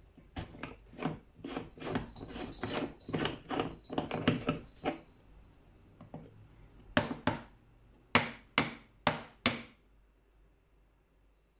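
Aluminium moka pot being unscrewed by hand: a quick run of scraping, grating clicks from the threads, then a few sharp metal knocks as the parts are handled, four of them in quick succession near the end.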